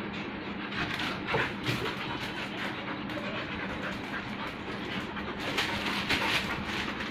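Labrador retriever romping in play, its paws scuffling and clicking irregularly on a bare concrete floor, over a steady low hum.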